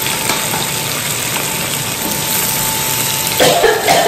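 Sliced calabresa sausage and onion frying in a pressure cooker pot, a steady sizzle. Near the end a wooden spoon stirs and scrapes the pot.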